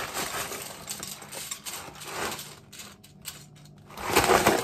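Cereal flakes poured from a bag into a ceramic bowl: a dense rattling patter that thins to a few scattered clicks, then a louder crinkle of the cereal bag near the end.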